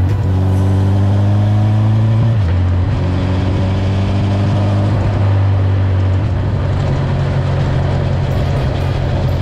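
Honda CB1000R inline-four running through a G&G aftermarket exhaust with the baffle in, pulling through the gears. Its pitch climbs, drops at a shift about two and a half seconds in, climbs again and drops at another shift around five to six seconds in, then holds steady.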